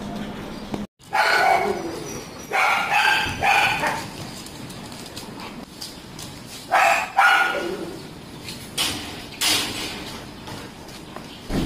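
Dogs play-fighting, barking in about four short bursts.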